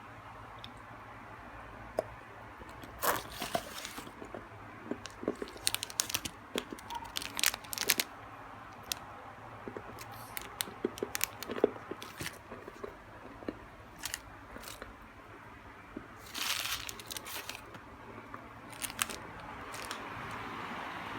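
Snacks and their wrappers being handled: irregular crunching and crinkling crackles, with a denser rustle lasting about a second roughly three-quarters of the way through.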